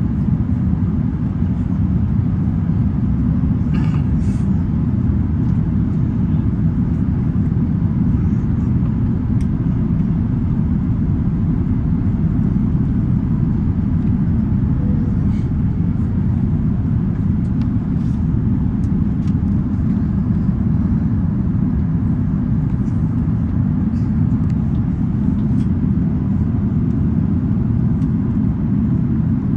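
Steady low rumble inside the cabin of an Airbus A380-861, from its Engine Alliance GP7270 engines and the airflow, holding even throughout. A few faint ticks can be heard, the clearest about four seconds in.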